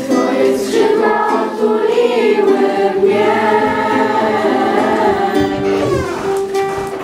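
A group of voices singing a song together, accompanied by strummed acoustic guitar.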